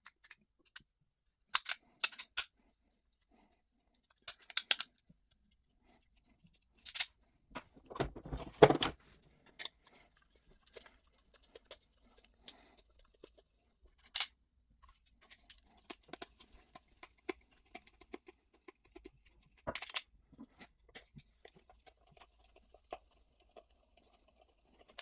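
Scattered clicks and light knocks of a small plastic winch remote and its tiny screws being handled as its casing is unscrewed and taken apart. The loudest clatter comes about nine seconds in.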